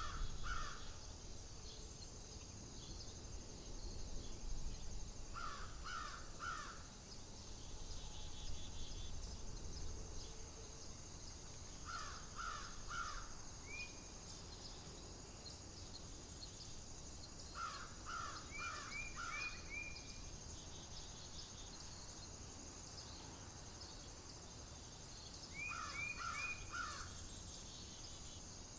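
A crow cawing in short runs of three or four caws, a run about every six seconds, five runs in all. Underneath are a steady high insect buzz, a low wind rumble and a few short rising chirps from another bird.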